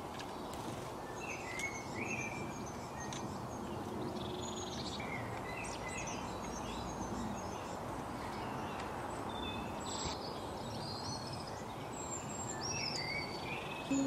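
Small garden songbirds chirping and singing in short, scattered phrases over a steady background rumble.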